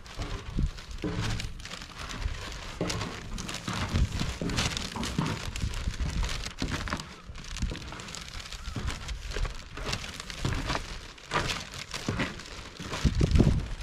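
Footsteps crunching in fresh snow while walking down snow-covered steps and along a snowy path: an irregular run of soft crunches and knocks, with a louder thump near the end.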